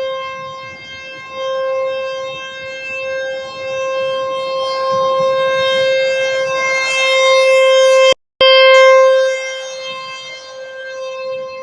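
Federal Signal Thunderbolt T-128 outdoor warning siren sounding a steady tone at one unchanging pitch. Its loudness swells and fades slowly as the head turns. It cuts out for a moment about eight seconds in and resumes at the same pitch.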